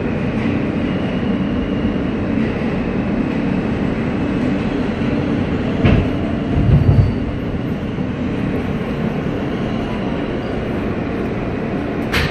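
New York City Subway R160-series train rumble heard inside the car, with a steady low hum that fades about halfway. A click and a dull thump come around the middle, and another click near the end.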